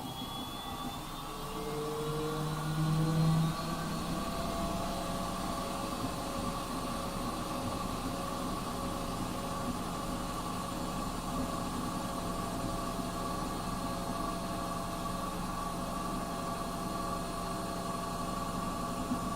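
Schulthess washing machine motor running up, its whine rising in pitch over the first few seconds, then running at a steady speed with a constant hum.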